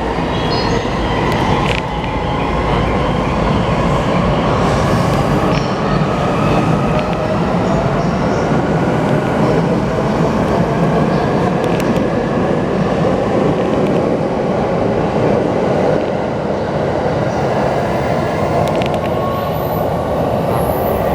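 E259 series Narita Express electric train pulling out and accelerating. Its traction motors whine and shift in pitch, and the wheels rumble and click over the rails.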